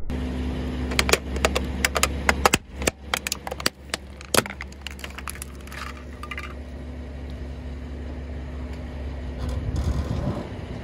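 Sharp cracks and crackles, several a second for about three or four seconds, as the tyre of a 2.5-ton Rolls-Royce rolls over brittle objects and crushes them. They stop, leaving the car's low steady hum with a few faint ticks near the end.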